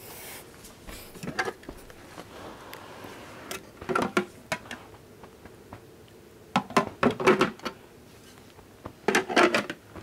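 Hollow plastic clunks and rattles in four short clusters as the Crane elephant ultrasonic humidifier's plastic water tank and base are handled, over a faint steady background.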